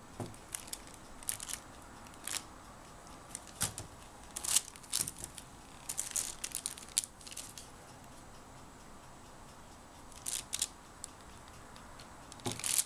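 A kitchen knife slicing through a block of cold process soap: a series of short, irregular scraping strokes, with a few soft knocks among them.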